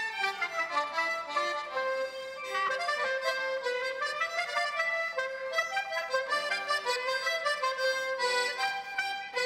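Traditional Norman folk dance tune played live by fiddle and a reedy free-reed instrument: a lively stepping melody with a steady beat.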